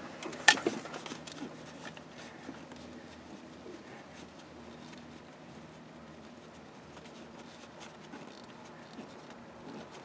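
A single sharp click about half a second in, then faint rustling and small ticks of a hand working around an engine's distributor under the hood, over a low steady hum.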